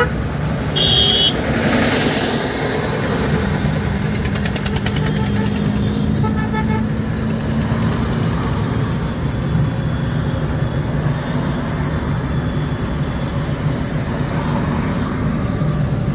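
Steady road and engine noise inside a moving car's cabin. A short, high vehicle horn toots about a second in, and a fainter, lower horn sounds around six seconds in.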